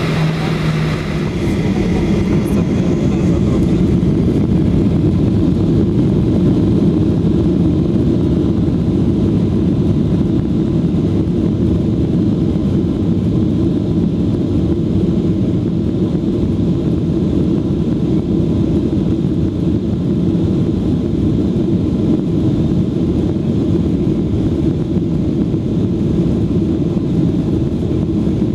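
Boeing 737 jet engines heard from inside the cabin, rising to a loud, steady rumble over the first few seconds and then holding level, with runway noise beneath, typical of the take-off roll.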